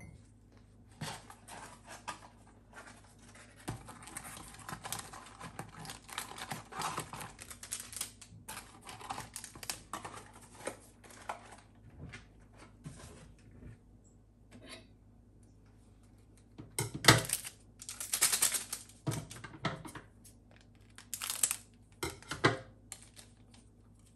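Foil instant-coffee sachets crinkling and rustling as they are handled, then louder sharp crackles about two-thirds of the way in as a sachet is cut open.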